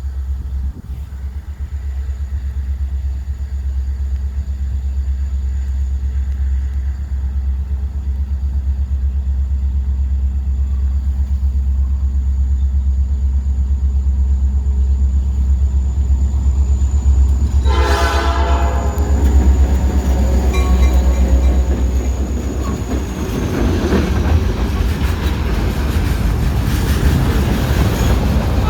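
Great Lakes Central Railroad train approaching and passing: the diesel locomotive's low rumble builds, its horn sounds a short blast about two-thirds of the way in, and the wheels clack over the rail joints as the cars roll by near the end.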